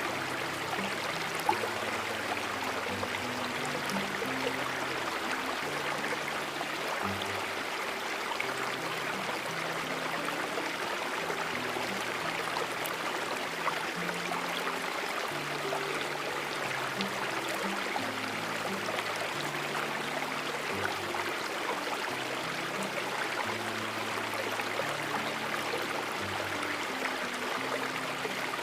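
Stream water flowing steadily, with low held notes underneath that shift in pitch every second or two.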